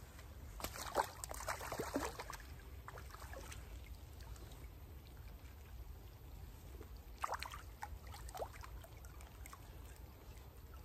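Water splashing at the near bank as a hooked brown trout thrashes at the surface, in a burst of splashes about a second in and a shorter one about seven seconds in, over a low steady rumble.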